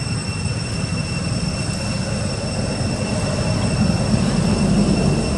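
A steady low outdoor rumble with thin, steady high-pitched whines above it, growing slightly louder around four to five seconds in.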